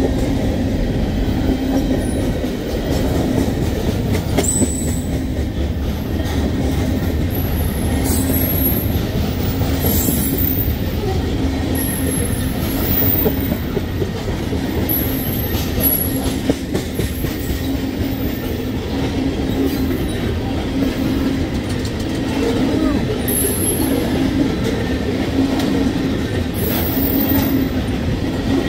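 Train running on the rails: a steady rumble of wheels on track, with brief high-pitched wheel squeals every few seconds.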